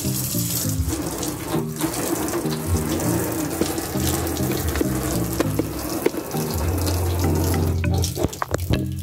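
Water running steadily while a car is washed, over background music with a bass line that steps between held notes. A few sharp clicks come near the end.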